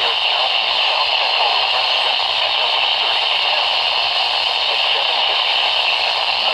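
Radio receiver giving a steady hiss of static.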